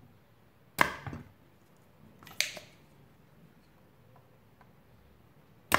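Spring-loaded desoldering pump (solder sucker) snapping as it clears solder from a circuit-board joint: three sharp clicks spread over a few seconds, the first and last the loudest.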